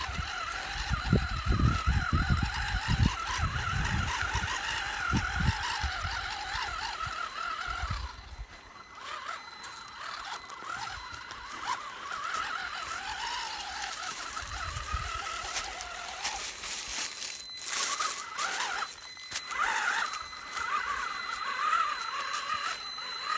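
WLtoys 12428 RC crawler's electric motor and gearbox whining, rising and falling quickly with the throttle as it crawls over rocks and sand. Low rumbling thumps run through the first several seconds.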